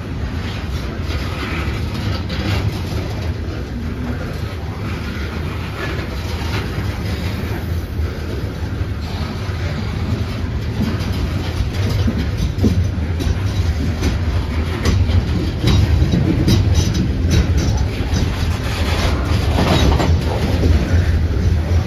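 Loaded coal train's cars rolling slowly past over street trackage: a steady low rumble with wheels clicking and clanking over rail joints. The clicks come more often in the second half.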